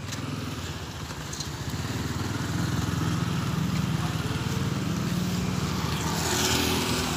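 A motor vehicle engine running steadily close by and growing louder. Near the end comes a hiss of tyres on the wet road.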